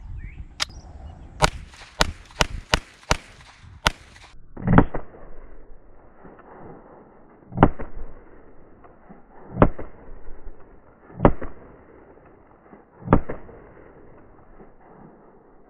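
Sharp metallic clicks as the magazine is seated and the pistol is handled. Then five shots from a Carrera GT50 traumatic (rubber-bullet) pistol, fired about two seconds apart just after the pistol comes out of twelve hours in a freezer; the shots sound muffled.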